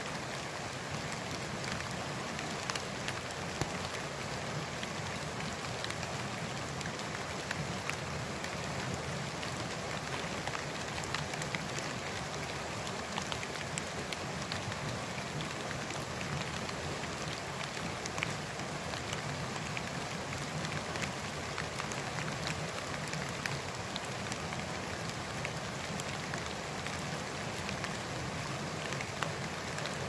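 Light drizzle falling: a steady hiss dotted with many small, scattered drop ticks.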